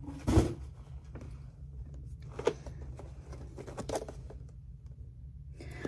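Packaging being handled as a parcel is opened and a boxed camera lifted out: rustling and scraping, a knock just after the start and a few sharp clicks about two and a half and four seconds in, over a low steady room hum.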